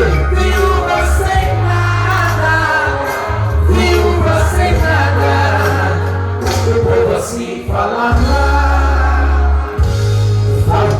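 Gospel music: singing over a band with strong sustained bass notes.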